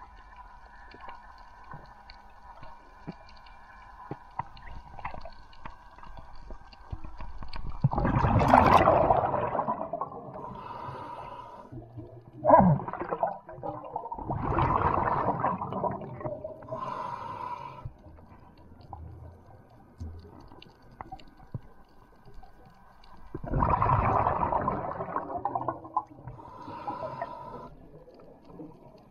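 Underwater bubbling and gurgling, in loud bursts of about two seconds (the first some eight seconds in, another near the middle, another about twenty-four seconds in) with shorter gurgles between, over a faint steady hum.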